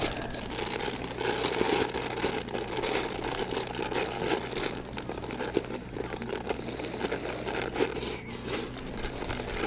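Plastic bags and packaging crinkling and rustling as they are handled and unpacked, with scattered small clicks and knocks.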